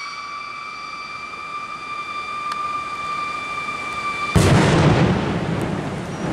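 Homemade 15mm whistle rocket whistling in flight: one steady high tone with overtones, rising slightly in pitch. A little over four seconds in, the whistle cuts off and a loud bang follows, rumbling away over about a second.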